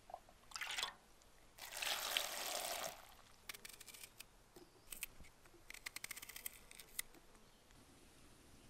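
A small knife slicing a peeled onion held in the hand, heard as a run of crisp, sharp cuts over a few seconds. The cuts come after a louder, longer rustling hiss early on.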